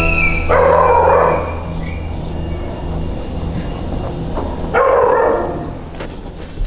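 A sustained low note of background music, with two short dog barks about four seconds apart.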